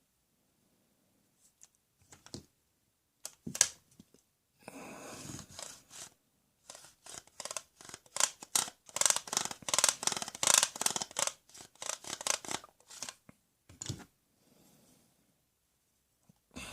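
Handling noise: a few isolated clicks, then a short rasping scrape about five seconds in, followed by a long run of quick, irregular clicks and snips that thins out near the end.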